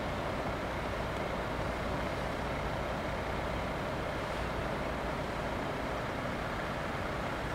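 Steady traffic noise from cars waiting at a closed railway level crossing, with an even mid-pitched hum.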